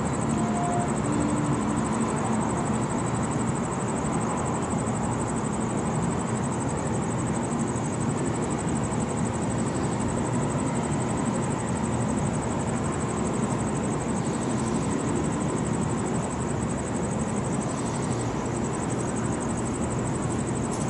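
Steady background hum of a city at night, even throughout, with a faint steady high-pitched buzz above it; no thunder is heard.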